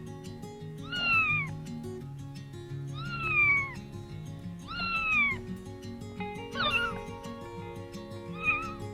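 Domestic cat meowing: three drawn-out, falling meows about two seconds apart, then two shorter ones, over background music.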